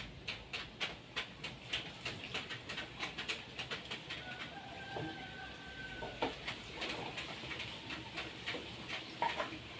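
Birds chirping in quick short calls, about three a second, with one longer steady whistled note about four and a half seconds in.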